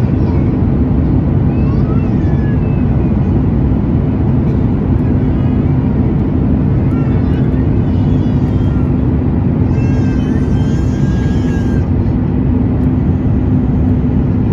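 Steady cabin drone of a Boeing 737 MAX in flight, its CFM LEAP-1B engines and the airflow making a constant low rumble with a steady hum.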